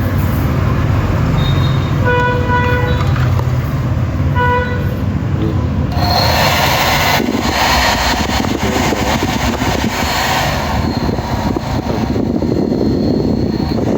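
Steady street traffic noise with two short horn honks in the first half, then a loud, rushing hiss from about six to ten seconds in.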